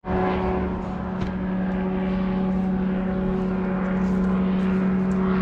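A steady motor drone holding one constant pitch throughout.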